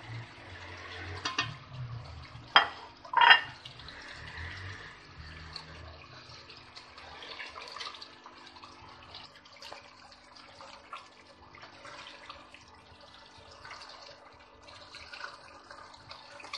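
Red silicone spatula stirring and scraping chicken masala gravy in an aluminium pot, wet stirring and sloshing throughout. Two sharp knocks about two and a half and three seconds in are the loudest sounds.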